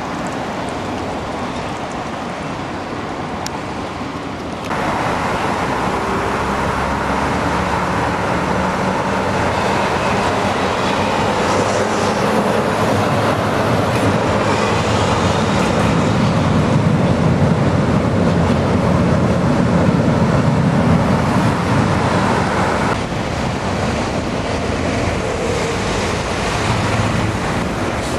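A tram running along street track close by, with road traffic noise underneath. The tram is loudest and deepest in the middle part. The sound changes abruptly twice, about five seconds in and again near the end.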